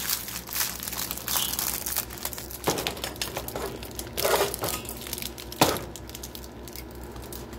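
Thin plastic film and a plastic microwave bowl crinkling and crackling as they are handled, densest in the first couple of seconds, with a few sharp knocks as the chicken and vegetables are tipped from the bowl into a metal saucepan.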